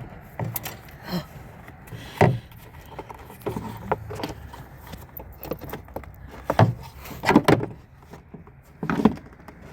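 Irregular clicks and knocks of parts being handled and fitted back together in a car's engine bay, with a louder cluster of knocks about two seconds in and again past the middle.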